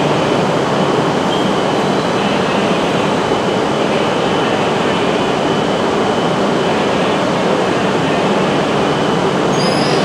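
E5 series Shinkansen creeping in at very low speed toward a stationary E6 series Shinkansen to couple, with a steady loud rush of train running and equipment noise. A faint high squeal comes in near the end.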